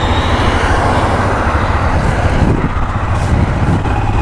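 Motorcycle engine running as the bike pulls away and rides along the road, heard from the rider's seat with a steady rush of wind and road noise. The engine sound dips briefly about halfway through.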